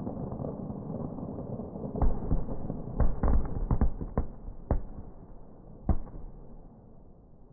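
Aerial firework shells bursting: about seven sharp bangs, most of them bunched together around the middle, over a low background noise. The bangs sound dull and muffled.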